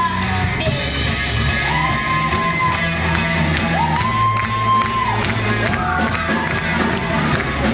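Rock song: long, held sung notes over a steady bass line and drum beat.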